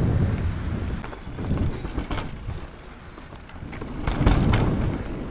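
Mountain bike riding down a dirt forest trail: tyres rolling over dirt, leaves and roots while the bike's frame and parts rattle. The rumble is loudest at the start and swells again about four seconds in.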